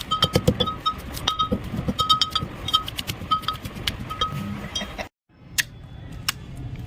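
Quick rhythmic clinking of a metal utensil striking a ringing metal vessel, about six strikes a second. It breaks off abruptly about five seconds in, followed by a couple of single sharp clicks.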